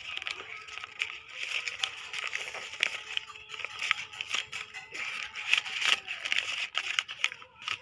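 Sheet of paper being folded and creased by hand into a paper boat, with steady crackling and crinkling and many small sharp clicks.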